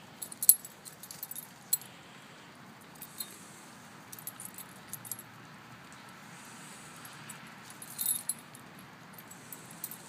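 A dog's collar tags and metal leash clasp jingling in short clusters of clinks as the dog sniffs and moves about, loudest about half a second in and again around eight seconds in.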